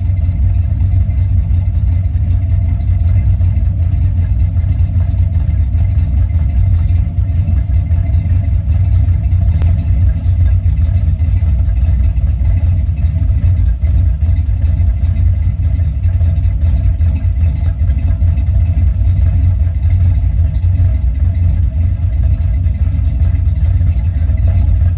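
1981 Corvette's 350 V8 with a rebuilt carburetor idling steadily as it warms up, an engine its owner judges to be running way too rich.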